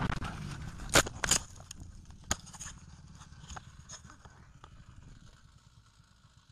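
Vehicle collision: two sharp, loud bangs about a second in and a third a second later, then scattered smaller knocks and clatter while the road noise dies away.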